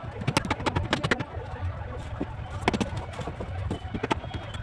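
Irregular sharp knocks and clicks: a quick cluster in the first second, then single strikes spaced a second or more apart, over a steady low rumble.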